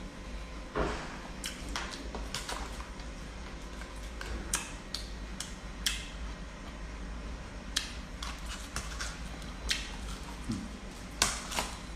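Someone eating by hand from plastic food containers: scattered sharp clicks and taps, about ten, spread irregularly, over a steady low hum.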